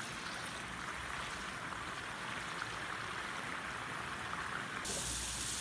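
Soaked dal deep-frying in a pot of hot oil: a steady sizzling, bubbling hiss, turning brighter and a little louder about five seconds in.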